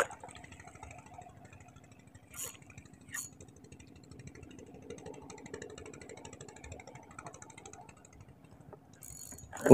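Faint steady low engine hum, with a few light clicks in the first few seconds.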